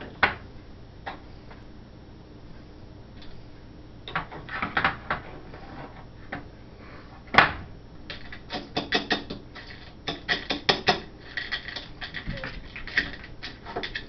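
A spoon clinking and scraping against a bowl as dog food is mixed. A few scattered knocks come first, then a sharp clack about halfway through, then quick runs of clinks.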